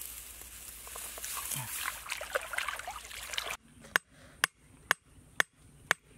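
Water trickling and splashing as hands work in shallow marsh water, then a cleaver chopping at a bamboo stake: five sharp strikes about half a second apart.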